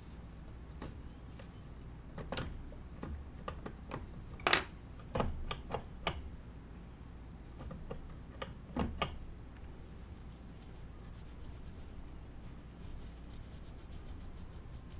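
Scattered small clicks and taps of tools being handled at a repair bench, the sharpest about four and a half seconds in. From about ten seconds in, a faint fast scratching as flux residue is scrubbed off the soldered flat cable.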